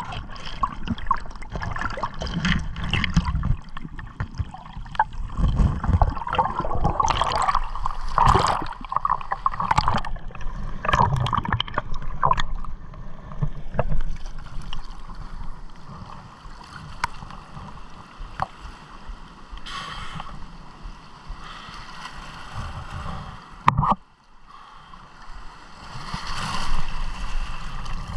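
Water splashing and gurgling around a spearfisher's camera in choppy, shallow water, with scattered knocks; a sharp knock a few seconds before the end.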